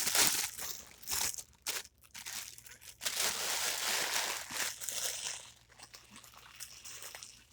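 Helium balloon being handled and squeezed, its skin crinkling and rustling in irregular bursts, with a longer stretch of hiss about three seconds in.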